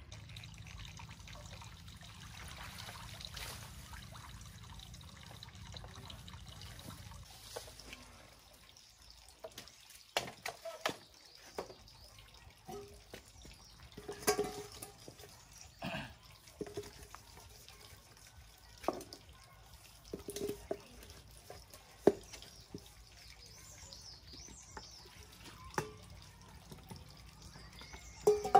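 Water splashing and pouring into a plastic bucket as it is scooped with a metal pot, broken by sharp clanks of the pot against the bucket and ground. Before that, a steady low wash of outdoor water noise.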